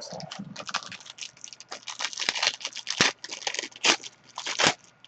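Trading card packaging crinkling and rustling as cards and wrappers are handled, with a few sharper clicks about three, four and four-and-a-half seconds in.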